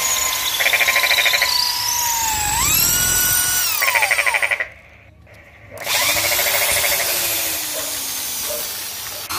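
Electric hand drill boring into a wooden dowel. The motor whine rises and falls in pitch with trigger and load, stops for about a second midway, then starts again and slowly runs down.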